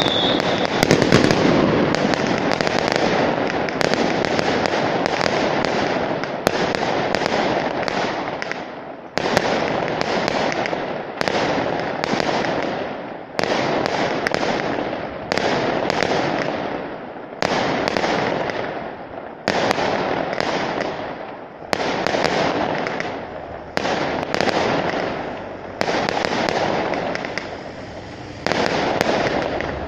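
Fireworks going off. The first several seconds are a dense, unbroken barrage of bangs. After that it settles into a run of loud bangs about every two seconds, each fading away before the next.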